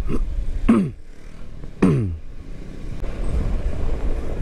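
Yamaha Xmax 250 scooter riding along a road: a steady low rumble of engine, wind and road noise. Three short tones glide downward in pitch in the first two seconds.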